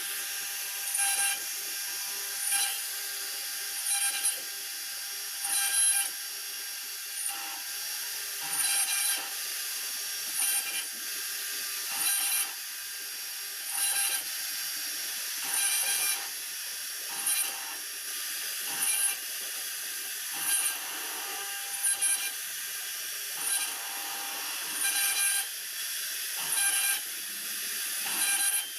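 Two-head CNC router's spindles running steadily with a whine, the bits cutting into a Lasani wood panel in louder bursts that repeat about every one and a half seconds as the tool passes trace the design.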